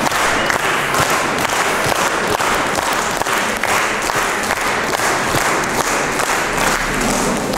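Audience applauding: many hands clapping steadily in a hall.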